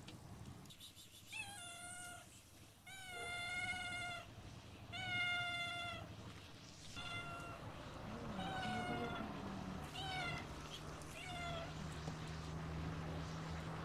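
Domestic cat meowing over and over, about seven long meows a second or two apart, some drawn out to about a second: a cat calling to be fed as raw chicken scraps are put out.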